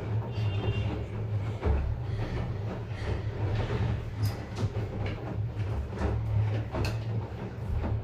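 LG DirectDrive front-loading washing machine tumbling a load in its wash phase: a steady low hum from the direct-drive motor and drum under the swish of wet clothes and water turning over. A couple of sharp clicks come through, about four and seven seconds in.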